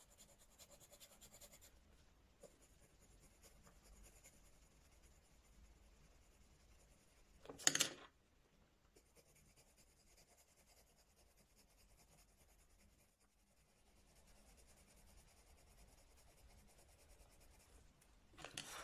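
Faint scratchy rubbing of a triangular coloured pencil shading on sketchbook paper, yellow and orange being layered to blend. Two short louder noises break in, about eight seconds in and near the end.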